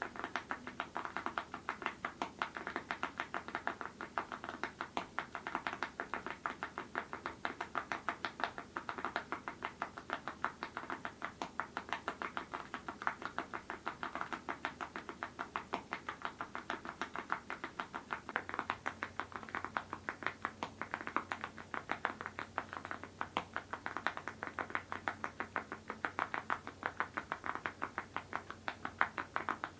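Mechanical keyboard with full-metal Awekeys keycaps on linear switches, typed on steadily and fast, many keystrokes a second.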